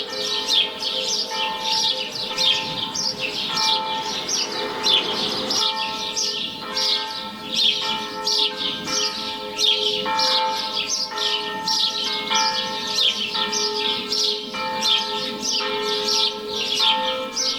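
Church bells of San Francesco ringing, a new set of ringing tones struck about once a second and more regular from about six seconds in, over the constant, dense chirping of small woodland birds.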